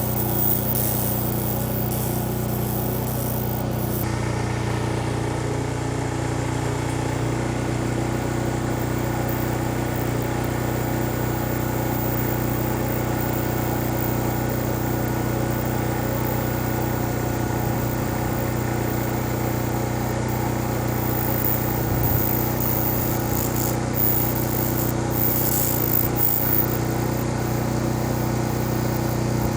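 Laser cleaning machine running with a steady hum made of several constant tones, while the beam strips varnish from wood.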